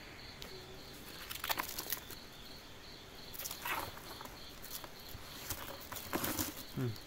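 Crickets chirping in a steady pulsed trill, broken a few times by louder bursts of rustling and handling noise, about a second and a half, three and a half and six seconds in.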